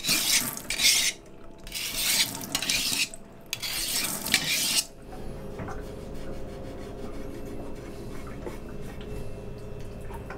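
Kitchen knife drawn along a flat metal sharpener under a running tap: about three long rasping strokes of blade on steel, which stop about five seconds in. After that comes a quieter steady hum, with faint knife cuts on a plastic cutting board as a lionfish is filleted.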